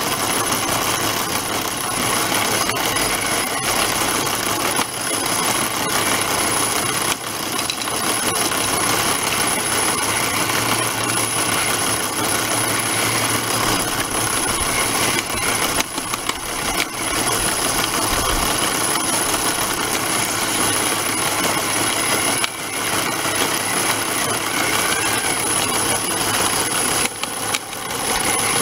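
Scale-model jaw crusher plant running steadily, its small electric drive running and the crushed material rattling through the jaws and off the conveyor, with a thin high whine over it. The motors of a radio-controlled CAT 966E wheel loader model add to it as the loader drives about.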